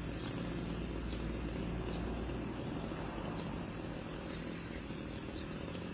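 Steady outdoor background noise with a low, engine-like hum underneath, like distant traffic, and no single event standing out.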